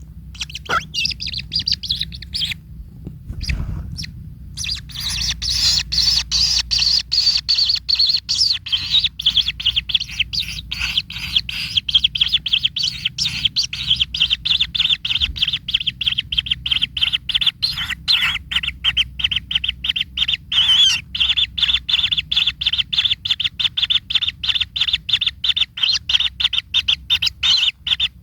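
Kingfisher calling: a fast, steady series of sharp high chattering notes, several a second. A short burst comes first, then a pause of about two seconds, then the calling goes on without a break.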